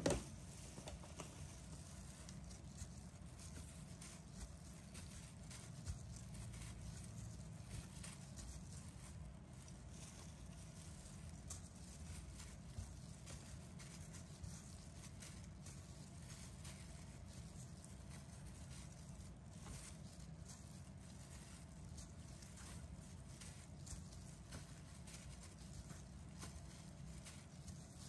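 Faint soft taps of chiffon cake slices being set down one by one on a metal baking tray, over a steady low hum. One sharp click at the very start is the loudest sound.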